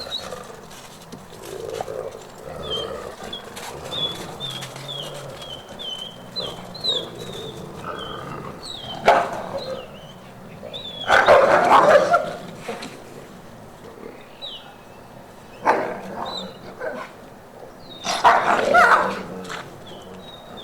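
Captive wolves vocalizing: loud, harsh bark-like outbursts, the longest lasting about a second, coming four times in the second half. Before them, a quick run of about a dozen short high chirps.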